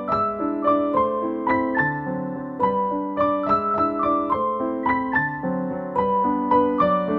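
Background piano music: a melody of single notes struck about three a second over held lower notes.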